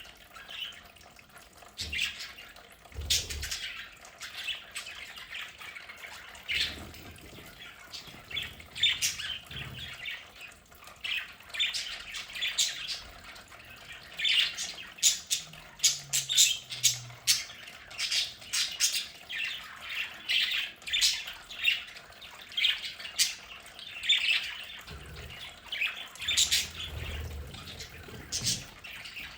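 A group of budgerigars chattering, with a steady stream of short, high chirps and squawks that overlap.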